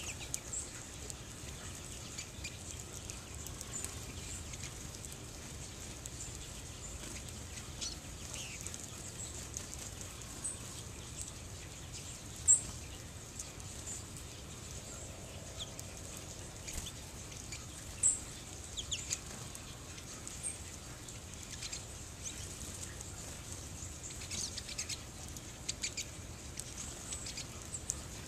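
American goldfinches and pine siskins giving scattered high chirps and twitters, with two sharp, loud calls about twelve and eighteen seconds in and a flurry of quick high notes near the end.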